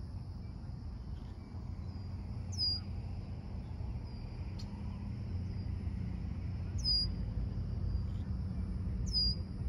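Dusk nature ambience: a steady high-pitched insect trill, with a short, high bird call that sweeps downward heard three times, over a low steady rumble.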